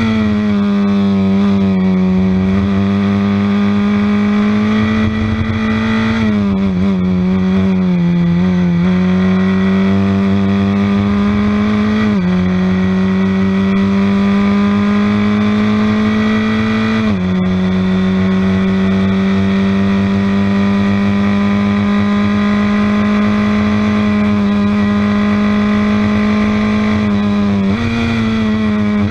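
Formula Ford 1600 race car's Honda four-cylinder engine at full throttle, heard on board, its pitch climbing slowly through each gear with two upshifts about 12 and 17 seconds in. The pitch wavers around 6 to 9 seconds in and jumps up with a downshift near the end.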